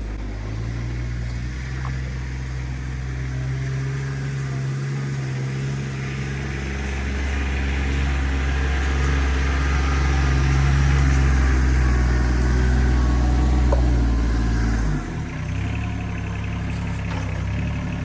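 RK 25 compact tractor engine running with a steady hum. It grows louder over the middle, then drops back and changes note about fifteen seconds in.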